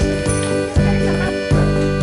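Background music with sustained notes over a bass line that changes note about every three-quarters of a second.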